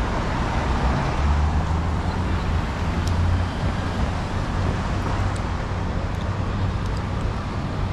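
Steady city street traffic: passing cars and other vehicles make a continuous hum, and a low engine rumble swells during the first few seconds.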